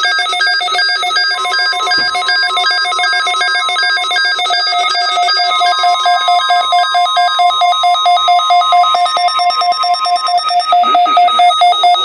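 Several weather radio receivers beeping their electronic alert alarms at once in a rapid, even pulsing pattern, set off by a Required Weekly Test broadcast. Some of the beeping patterns drop out partway through, and a long steady tone runs underneath for most of it.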